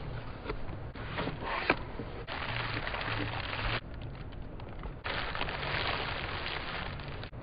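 Radio static: bursts of hiss that switch on and off abruptly, over a low hum.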